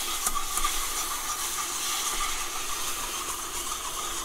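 A hot butter-and-flour roux sizzling steadily in a pan as chicken stock is poured in and whisked through it.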